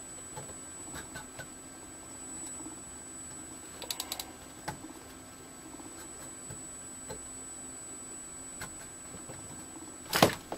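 Small clicks and ticks of a vintage television's control knobs being turned, with a quick run of about four ticks around four seconds in. Under them are a faint steady hum and a thin high whistle, and there is a louder brief thump near the end.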